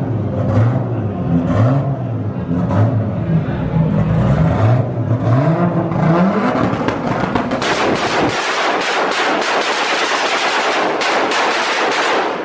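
Car engine revved repeatedly, its pitch climbing and falling with each blip, with exhaust pops and bangs crackling through it, echoing in a garage. Near the end the revving gives way to a dense, rapid string of bangs.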